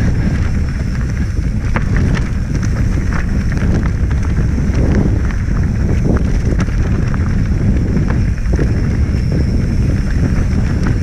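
Mountain bike descending a rough trail, with wind buffeting the microphone over the tyre rumble. Frequent clicks and knocks come from the bike rattling over bumps.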